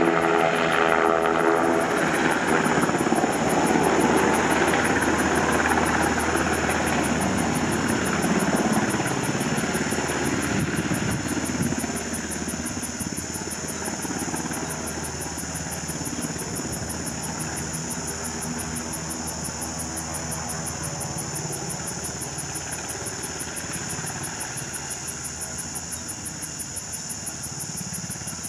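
Sikorsky Blackhawk helicopter's rotor and turbine engines running in a low hover as it descends to land. The sound grows steadily quieter, with a drop about twelve seconds in.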